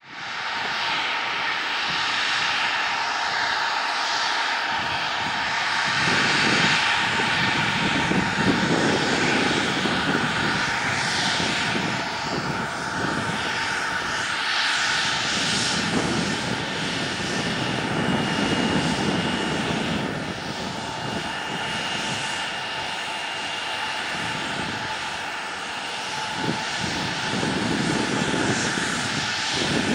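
Bombardier CRJ-900's two rear-mounted General Electric CF34 turbofans running at low power as the jet taxis along the runway: a steady whine over a rushing, rumbling roar that swells and eases slowly. The sound cuts in abruptly at the start.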